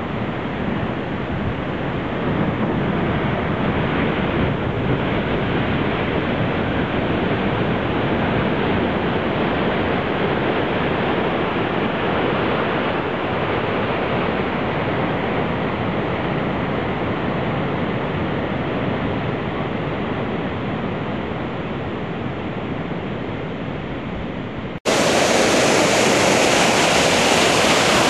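Heavy ocean surf, sets of 5 to 8 feet, breaking into wide fields of foaming whitewater: a steady, unbroken rush of water. Near the end it cuts abruptly to a louder, brighter rush of big waves breaking on the shore.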